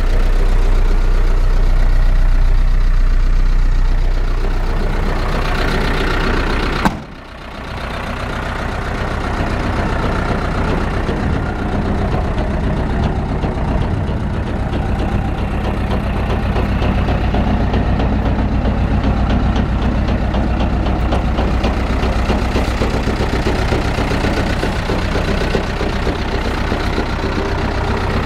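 Mitsubishi Canter 3.3 turbo-diesel engine idling steadily. A click about seven seconds in is followed by a brief dip before it comes back.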